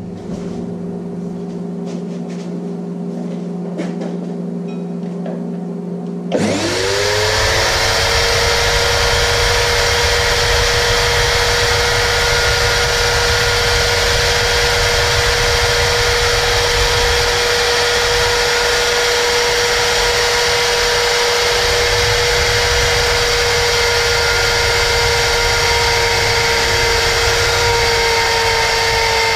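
A steady low hum, then about six seconds in a handheld router mounted on the lathe is switched on: a sudden start with a rising whine that settles into a steady high-speed run. It keeps running as it mills a slot into the cast-iron brake disc.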